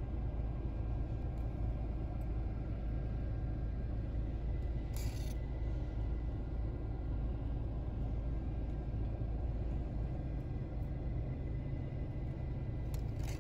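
Steady low rumble inside a car's cabin, with a brief rustle about five seconds in.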